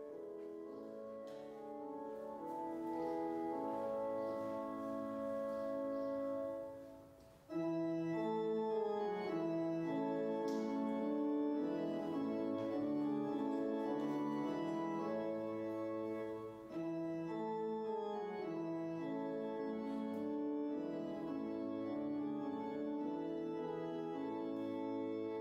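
Organ music playing slow, held chords. It fades briefly about seven seconds in, then a louder passage begins.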